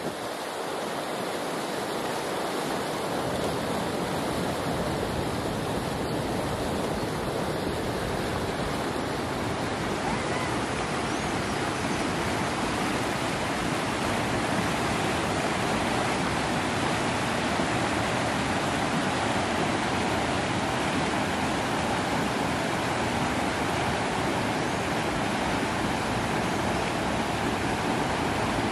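Steady rushing of river water, an even noise with no breaks, growing a little louder over the first few seconds and then holding steady.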